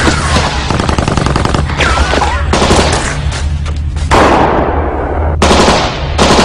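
Rapid machine-gun fire for the first two seconds or so, then three loud single blasts, each with a long fading tail, over a steady low rumble.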